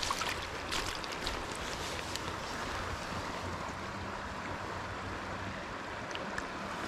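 Steady rush of a shallow trout stream flowing and rippling around the wading angler, with a few faint small clicks.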